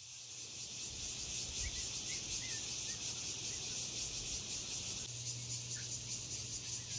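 Outdoor insect chorus: a steady, even high-pitched buzz of insects, with a few faint short chirps early on.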